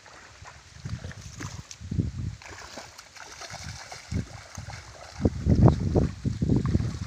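Wind buffeting a handheld phone microphone in an open field: irregular low rumbling gusts that start faint and grow much stronger about five seconds in, over a faint hiss.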